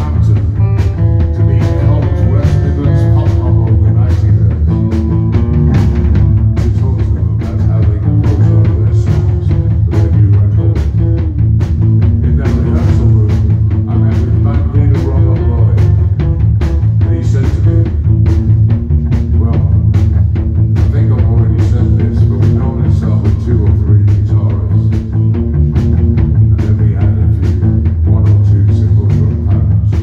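Live rock band playing loudly: distorted electric guitars over a bass-heavy low end and a steady drum-kit beat.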